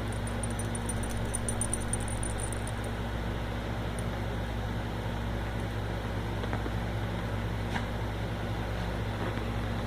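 Steady mechanical hum with a low drone and an even hiss, unchanging throughout.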